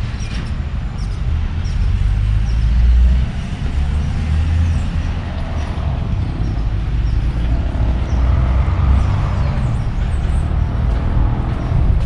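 Residential street ambience: a steady low rumble of road traffic, swelling in the second half as a vehicle passes, with birds chirping high above it.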